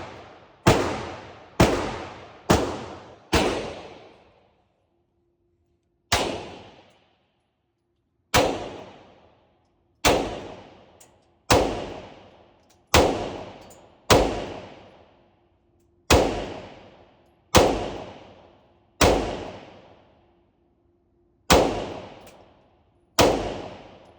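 A slow, deliberate string of about fifteen pistol shots, roughly one every one to two seconds with a longer pause a few seconds in, each sharp crack trailing off in a short echo.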